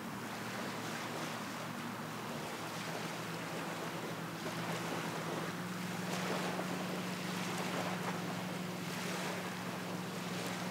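Water lapping and splashing against a small sailboat's hull under sail, with wind buffeting the microphone. A steady low hum runs underneath.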